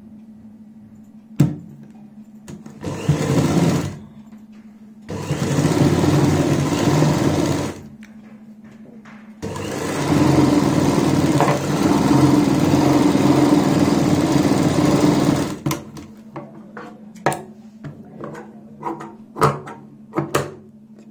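Sewing machine stitching a seam along a sleeve cuff, running in three spells, the last about six seconds long, over a steady low hum. Near the end come a series of sharp snips and clicks as tailor's shears trim the threads.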